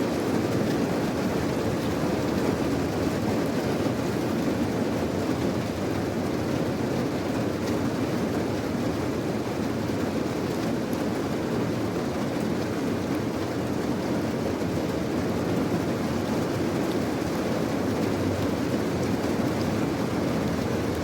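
Steady heavy rain: a dense, even rushing noise, deepest in the low range, that runs on without a break.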